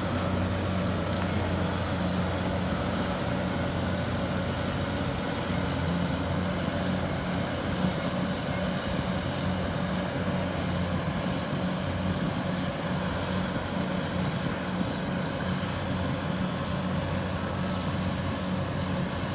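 Bulldozer diesel engines running steadily, a low drone over a constant rushing noise.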